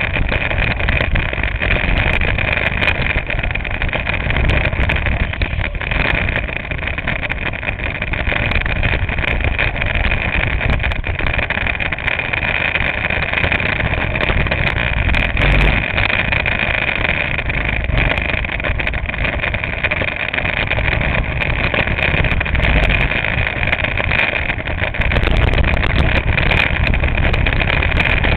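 Go-kart engine running continuously at racing speed, heard from on board the kart: a steady high drone over a low rumble, a little louder in the last few seconds.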